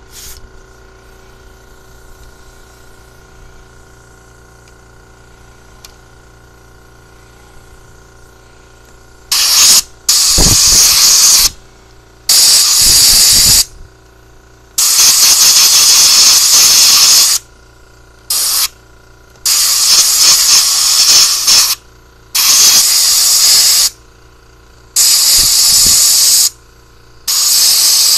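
Compressed-air blow gun blowing out the passages of a disassembled four-barrel carburetor, to clear dirt from its jets and holes. It comes as a string of about nine loud hissing blasts, each from a fraction of a second to a couple of seconds long, starting about nine seconds in.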